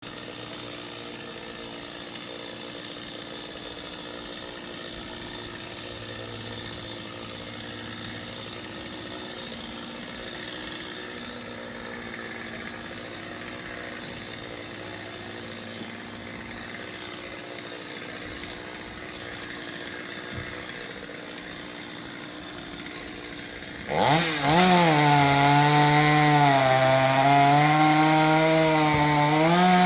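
A steady, fainter engine drone, then near the end a chainsaw revs up sharply and runs loud at high speed, its pitch wavering up and down.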